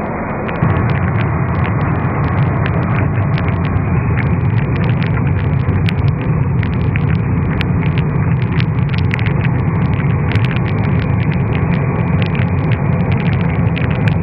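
Stone-crushing and sand-making plant running: a steady heavy machine rumble that grows louder about half a second in, with crushed rock clattering in many sharp clicks.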